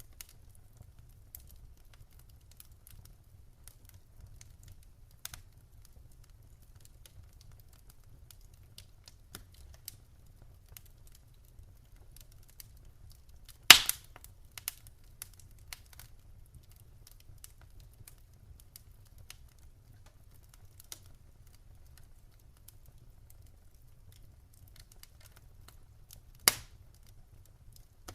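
Wood campfire crackling with scattered small snaps over a low, steady rumble, and two loud pops, one about halfway through and one near the end.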